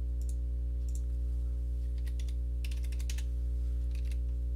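Scattered light clicks from a computer keyboard and mouse, with a quick run of clicks from about two to three seconds in, over a steady low electrical hum.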